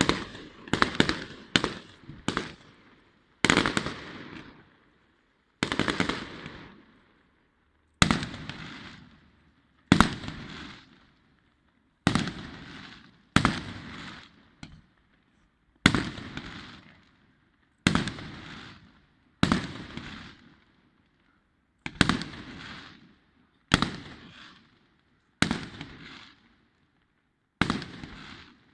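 Fireworks display: a quick volley of sharp bangs at the start, then single bangs about every two seconds, each dying away over a second or so.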